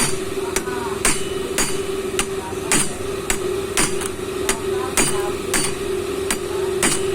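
Hammer striking metal in an even rhythm, about two blows a second, while a bearing on an LG washing machine motor is being knocked off or driven on. A steady hum runs underneath.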